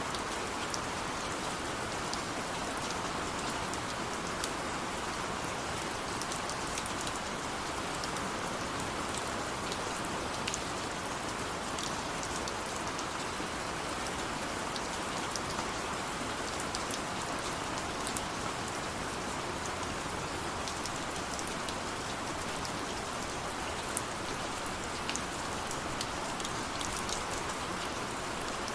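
Steady rain: an even hiss of falling rain with many small drop ticks scattered through it.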